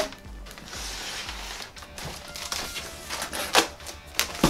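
Cardboard model box being handled: light knocks and soft scrapes as a boxed model is turned round and slid out of its packaging, over faint background music.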